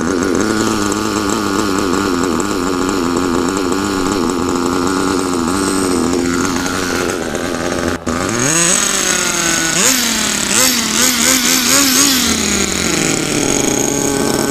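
Small two-stroke glow-fuel engine of a broken-in nitro RC car idling with a wavering pitch, then revved up and down in several quick throttle blips a little past halfway before settling back to idle.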